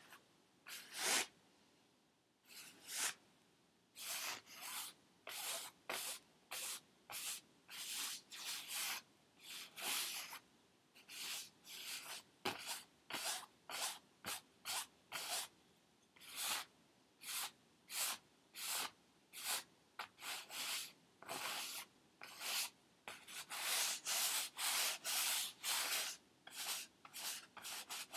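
Paintbrush strokes scrubbing across a stretched canvas: a steady run of short brushing rubs, about two a second, coming longer and closer together in the last few seconds.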